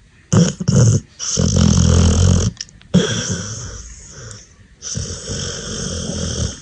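Pit bull-type puppy snoring loudly in its sleep: two short snorts about half a second in, then three long rasping snores, each lasting one to two seconds.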